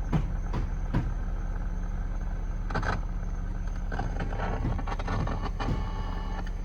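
A steady low hum with a few sharp clicks and knocks in the first second, and brief rustling and handling noise about three seconds in and again around five seconds in.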